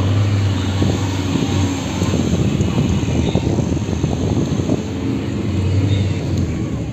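Steady engine and road noise of a moving car heard from inside the cabin, a low drone under a rushing noise.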